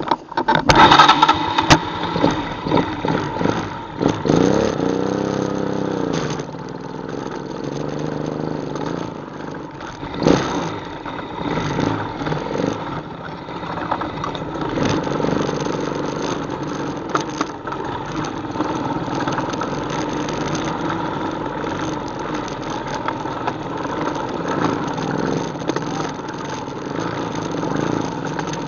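ATV engine running as it is ridden, with a rev that rises and falls about four to six seconds in, then a fairly steady run with small swells in throttle. A burst of loud knocks and rattles comes in the first two seconds.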